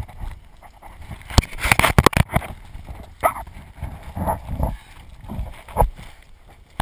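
Scuffing, knocking and scraping as a person crawls on hands and knees over dirt through a corrugated metal culvert pipe, with gear and the camera bumping the ridged metal wall. About one and a half to two seconds in there is a burst of sharp clatters, the loudest part, followed by scattered knocks and scuffs.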